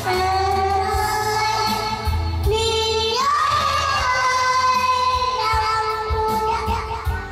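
A young boy singing a Vietnamese song over backing music, holding long drawn-out notes that bend in pitch.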